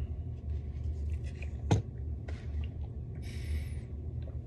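Small mouth clicks and lip smacks from a man recovering from very spicy food, with a sharper click about two seconds in and a short breathy hiss a little past three seconds, over a low steady hum.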